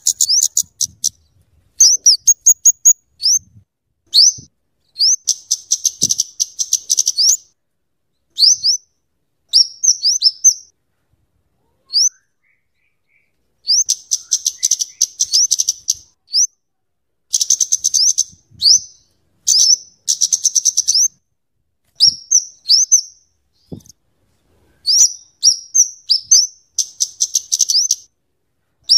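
Kemade (cabe-cabean) flowerpecker calling. Its high, sharp chip notes come singly and in fast rattling trills, in bursts with short pauses between them.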